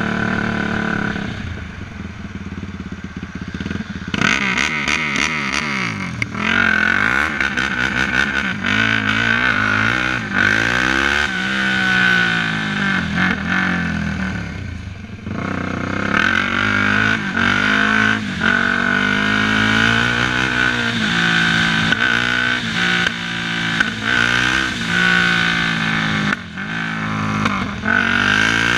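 Single-cylinder four-stroke engine of a Yamaha sport quad under way, its revs climbing and falling repeatedly as the rider opens and closes the throttle.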